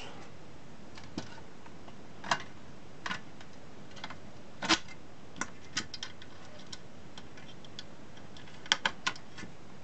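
Scattered light clicks and taps of small plastic wire connectors being handled and plugged in on a battery charger's circuit board, with a quick run of three clicks near the end, over a steady background hiss.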